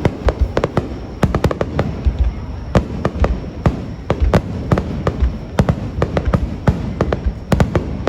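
Aerial fireworks shells bursting in quick succession: many sharp bangs, several a second, over deep rolling booms.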